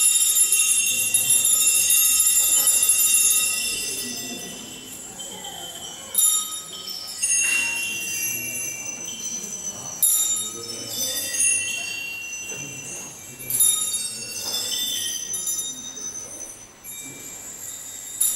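Small metal bells jingling: a dense shimmering ring for the first few seconds that then fades, followed by separate shakes or strikes every second or two, each ringing on.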